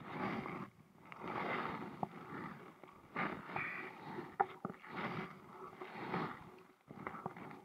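Kayak paddle strokes: the blades dip and pull through the water in a steady rhythm, about one stroke every second and a half, with a few sharp knocks.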